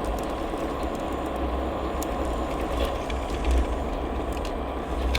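Motorised Lego 60052 cargo train backing up along plastic track: a steady motor whir and rolling rumble, with a few scattered clicks from the wheels.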